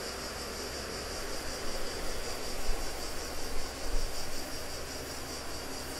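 Steady hiss of recording noise with a low hum underneath, and a few faint soft scuffs in the middle.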